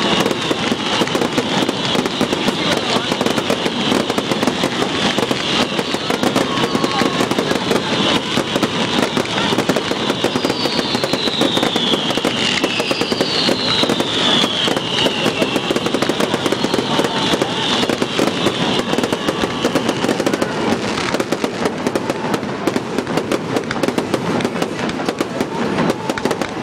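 A barrage of fireworks: rapid bangs and pops with no break, over a dense crackle that stops about twenty seconds in. Around the middle come two whistles, each falling in pitch.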